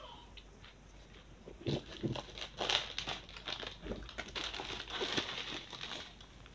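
Plastic snack packet being handled and opened, a dense irregular crinkling that starts about two seconds in and keeps going, with a few soft handling thumps.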